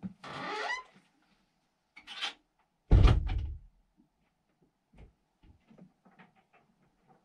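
A door shutting with a loud thud about three seconds in, after a short squeak near the start and a brief rustle, then a few faint clicks and knocks.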